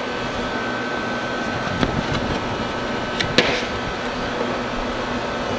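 Steady mechanical hum with a faint high whine, broken by two light knocks, the first about two seconds in and the second a second and a half later.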